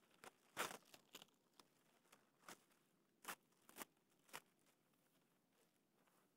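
A plastic sheet crinkling and rustling in a handful of short, separate rustles as it is handled and spread out, dying away after about four and a half seconds.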